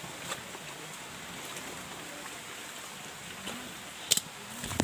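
Movement through dense undergrowth: leaves rustling and a few sharp snaps of twigs, the loudest about four seconds in, over a steady hiss.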